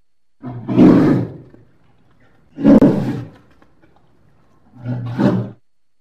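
Polar bear giving three low growls about two seconds apart, the last one shorter.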